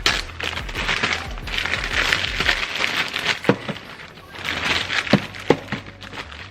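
Plastic packaging of frozen food crinkling and rustling in stretches as packages are handled, with a few sharp knocks about halfway through and near the end.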